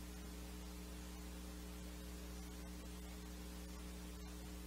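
Steady electrical mains hum with a layer of hiss underneath.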